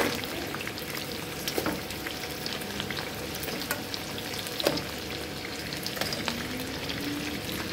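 Blue swimming crabs sizzling in a hot pot over sautéed garlic and onion: a steady hiss with scattered crackles and pops, one sharper pop about halfway through.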